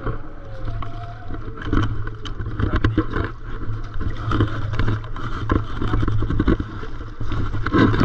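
Stand-up paddleboard being paddled on calm sea water. The paddle blade dips and pulls through the water stroke after stroke, and water splashes along the board, over a steady low rumble.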